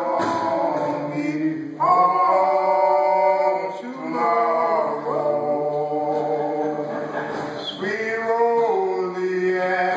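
A small group of men singing a cappella in harmony: a menhaden fishermen's work song (shanty). Slow phrases of long held notes, a new phrase starting every couple of seconds.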